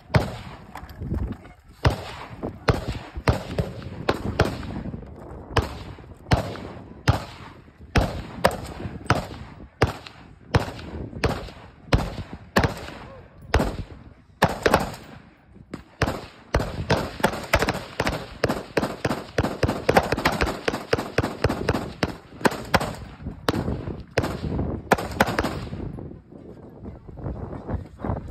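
Gunshots at a shooting range, many in a row from more than one gun, fired at an uneven pace. A rapid string of shots, about four or five a second, runs from about two-thirds of the way through for roughly six seconds, then the firing goes back to single shots.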